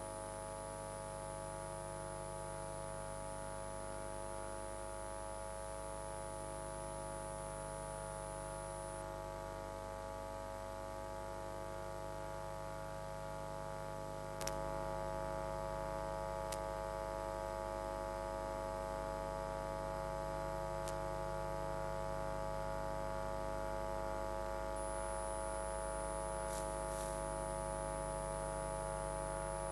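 Steady electrical mains hum with many overtones on the audio line. A click about halfway through, after which the hum is a little louder.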